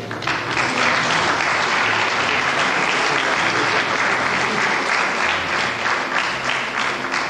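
Audience applauding, starting suddenly and keeping up steadily to near the end.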